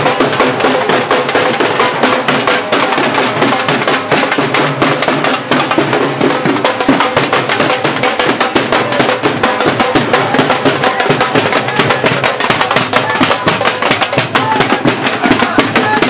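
Fast, continuous dhol drumming for a dhamal, the Sufi devotional trance dance, with rapid beats packed closely together.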